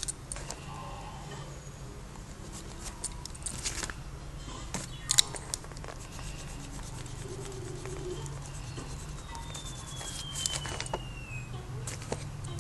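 Pilot FriXion ball pen scratching and tapping on paper in short, irregular strokes, with a sharp click about five seconds in, over a steady low hum.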